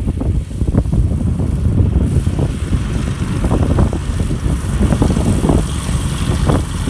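Small single-engine propeller plane taxiing at low power, its piston engine and propeller running near idle and getting louder and brighter as it nears.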